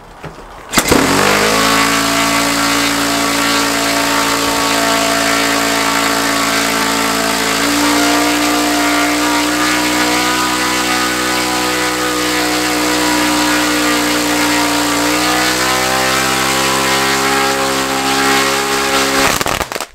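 Saito FA-62B single-cylinder four-stroke glow engine catching about a second in, then running steadily with its propeller turning. Its speed steps up twice, and it cuts out suddenly near the end when the throttle cut is used.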